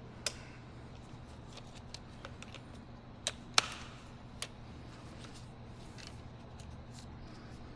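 A few separate sharp clicks and taps from handling the door latch actuator and its parts. The loudest comes about three and a half seconds in, over a steady low hum.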